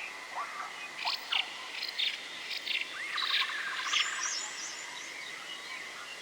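Forest ambience of several birds chirping and calling, with a quick rattling trill about three seconds in, over a faint steady high tone.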